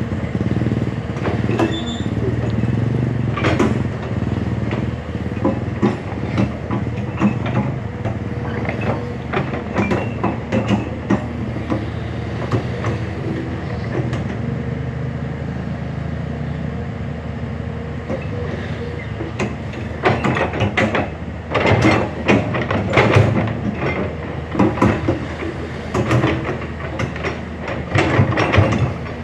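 Hyundai HX210S excavator's diesel engine running steadily while the machine works, with repeated metallic clanks and knocks over it that come in dense clusters about two-thirds of the way through and again near the end.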